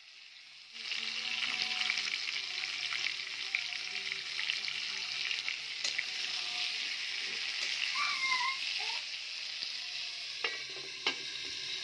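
Potatoes sizzling and crackling as they fry in hot oil in a pan, starting about a second in, with a few sharp taps of a utensil against the pan near the middle and end.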